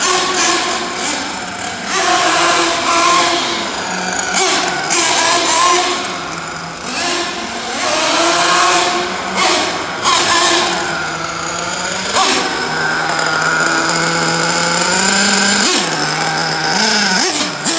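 Kyosho Inferno NEO ST 3.0 1/8-scale nitro RC truggy's glow engine revving up and down as the car is driven. It holds a high, steady pitch for a few seconds in the second half, drops sharply, then gives a few quick blips near the end.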